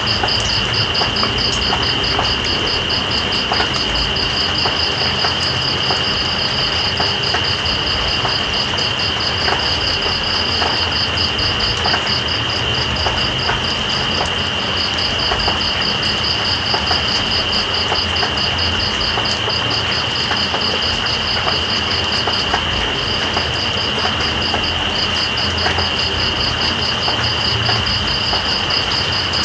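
Steady rain falling with scattered drop ticks, under night insects calling: one holds a continuous high trill while another, higher still, pulses rapidly without pause.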